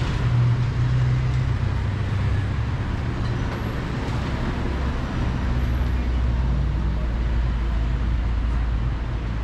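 Street traffic: a motor vehicle's engine running close by, a low drone that drops deeper about two seconds in, over a steady haze of street noise.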